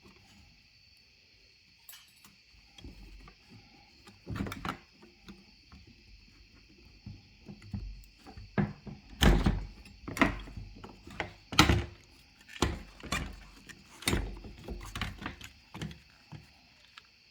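Irregular thunks and clunks of metal tools and parts being handled while the fuel pump is worked loose, about a dozen knocks, busiest and loudest in the middle.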